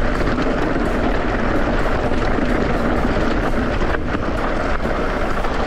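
Mountain bike rolling downhill on a loose dirt and stone trail: a steady rush of tyre noise over gravel and the bike rattling, with a few light knocks, mixed with wind on the action camera's microphone.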